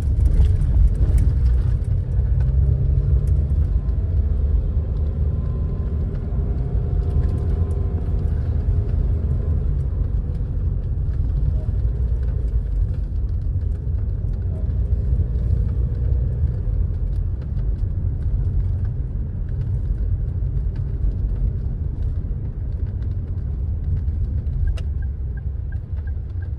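Car driving on the road: a steady low rumble of engine and tyres.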